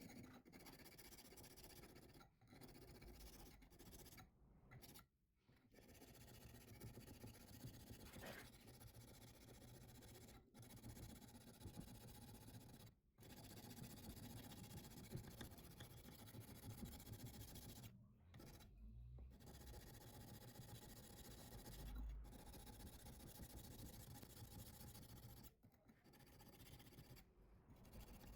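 Faint, continuous rasp of sandpaper rubbed by hand over a steel knife blade, broken by a few short pauses between strokes.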